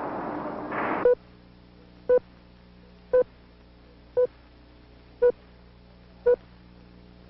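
Electrocardiograph heart monitor beeping with each heartbeat, a short single-pitched beep about once a second, seven beeps in all. A rushing noise fades out in the first second before the beeps begin.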